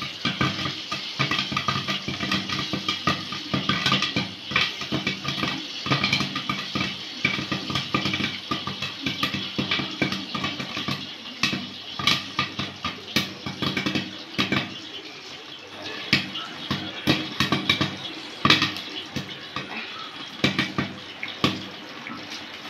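Popcorn kernels popping in hot oil in a covered frying pan: a dense run of sharp pops over a steady sizzle. The pops thin out over the last several seconds as the batch nears the end of popping.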